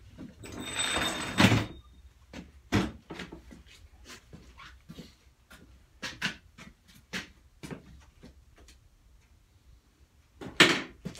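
Scattered knocks, clicks and rustling from someone moving about and handling things in a small room. A louder rustling scrape comes about a second in, a sharp knock follows near three seconds, and another loud burst comes near the end.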